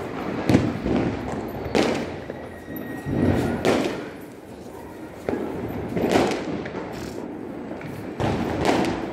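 Firecrackers going off: a series of about six sharp bangs at uneven gaps of one to two seconds, each with a short echo.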